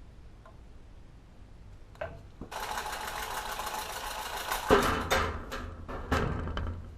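Plumbing tool work: a rapid mechanical rasping whir for about two seconds, then a sharp loud knock followed by a few more clanks.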